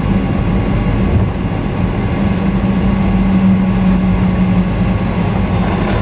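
Steady cabin noise inside a Boeing 737 taxiing after landing: the jet engines running at idle over a constant rush, with a low hum that swells slightly a few seconds in.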